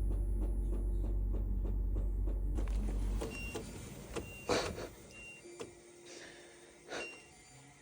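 A low, steady motor hum that stops about three seconds in, followed by a few scattered clicks and knocks.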